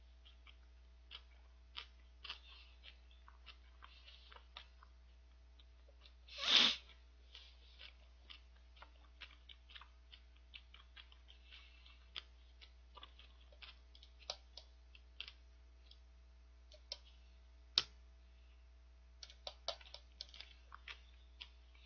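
Quiet chewing of a soft white-bread sandwich: faint, irregular clicks and smacks from the mouth. About six and a half seconds in comes one short hissing burst, the loudest sound.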